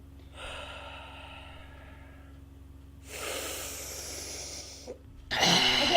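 Two long breathy exhales close to the microphone, the second louder and hissier than the first. A sudden loud sound starts near the end.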